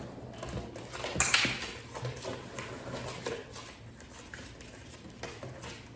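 A spoon stirring a thick slime mix in a bowl: irregular scraping and light clinking against the bowl, loudest about a second in.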